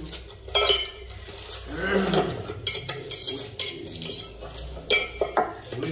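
A steel knife scraping and clinking against a sharpening stone in a series of short metallic strokes, with a short voice-like sound about two seconds in.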